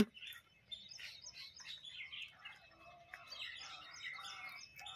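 Several small birds chirping, many short overlapping calls, after a brief sharp click at the very start.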